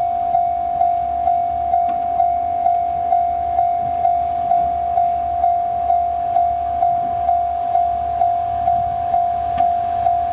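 Japanese level-crossing alarm bell ringing, a steady single-pitched ding repeating about twice a second, with the flashing signals warning of an approaching train. Underneath is a low rumble that grows near the end as the SD55 diesel locomotive draws near.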